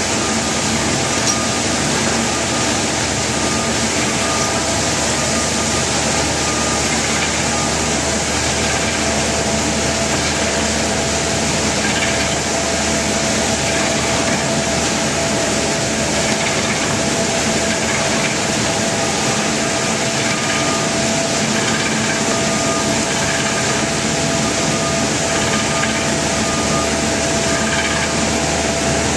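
Seven Chefs ECD-202 commercial onion slicing machine running steadily, an unbroken machine drone with a constant hum.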